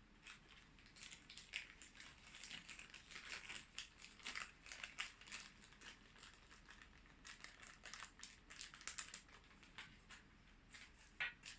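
Faint, scattered crinkling and rustling of plastic packaging with small clicks, as camera accessories are handled and unwrapped.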